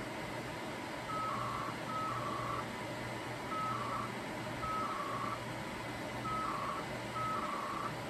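Modem data between the central station's downloader modem and a Scantronic SC800 alarm panel: short two-tone bursts, a brief higher tone stepping down to a slightly lower one, repeating about once a second as the downloader reads the panel's settings over the phone line.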